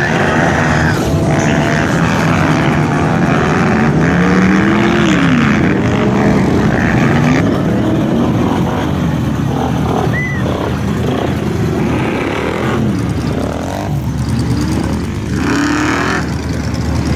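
ATV (four-wheeler) engines revving hard through dirt and mud, their pitch repeatedly rising and falling with the throttle, mixed with a pickup truck's engine running in the mud.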